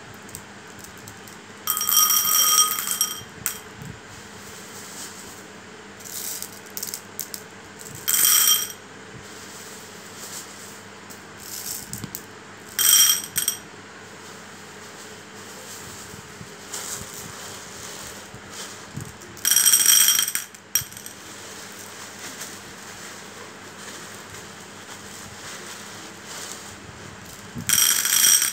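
Glass marbles clattering in a small ceramic bowl as handfuls are dropped in and scooped out: five bursts of clinking, each about a second long and a few seconds apart, with the bowl ringing. A faint steady hum lies underneath.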